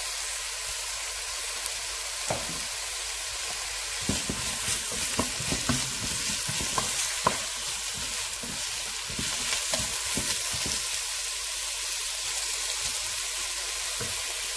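Sliced red onions sizzling steadily in hot oil in a pan. From about four seconds in, for several seconds, a wooden spatula scrapes and knocks against the pan as the onions are stirred.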